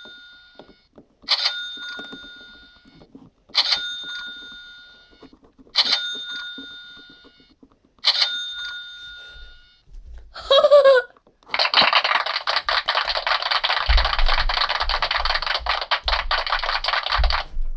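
A bell-like ding sound effect struck five times, about every two seconds, each ring fading out over a second. After a short gliding sound, a dense crackling noise runs for about six seconds and then stops abruptly.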